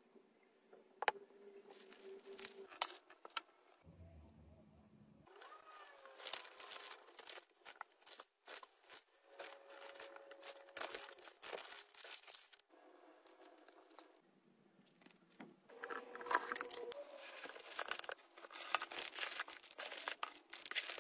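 Paper and foil packaging crinkling and rustling as it is handled and folded, with many small clicks and taps. It comes in two longer busy stretches with quieter handling in between.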